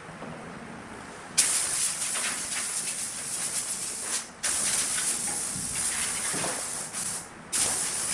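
Loud hissing in three long bursts that cut in and stop abruptly, each lasting a couple of seconds with short gaps between.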